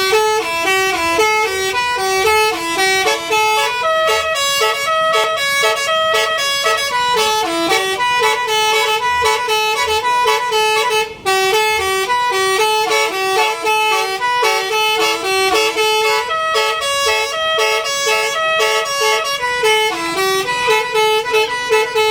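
A bus's basuri musical air horn playing a quick melody of short, stepping notes without pause, loud throughout.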